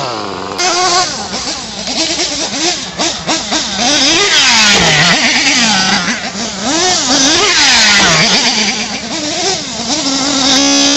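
Small nitro engines of RC monster trucks revving, the pitch rising and falling over and over, with more than one engine running at once.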